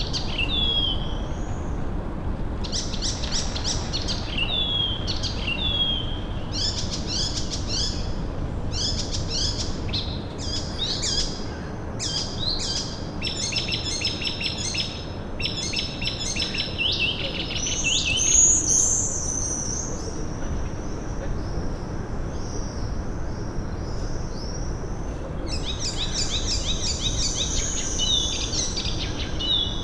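Several songbirds singing and calling: short falling notes repeated about once a second, then busier phrases with rapid trills, over a steady low background hum.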